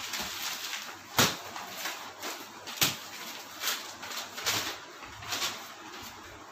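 Newspaper pages rustling and crackling as they are handled and turned over, in irregular bursts, with two sharper paper snaps about a second in and near the middle.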